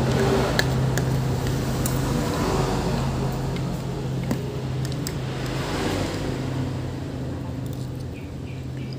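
Traffic noise: a steady low engine hum that swells and fades as vehicles pass. Scattered light clinks of a metal spoon and fork against a plastic bowl sound over it.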